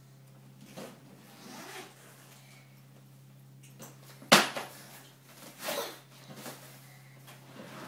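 A black soft-sided case being opened and unpacked on a wooden floor: soft rustles of handling, a sharp knock about four seconds in as the lid is flipped open, then a swishing rustle of nylon fabric as a pink bag is pulled out.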